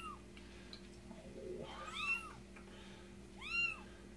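A very young kitten mewing during a flea bath: high-pitched mews that each rise and fall, about one every one and a half seconds, two of them overlapping about two seconds in.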